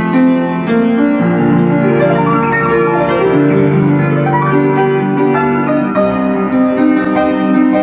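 Background music: a piano melody of steady, changing notes over a held accompaniment.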